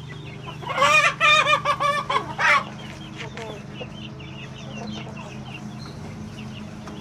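A Bangkok game rooster crows once for about two seconds, a high, wavering call. The flock clucks and cheeps faintly throughout.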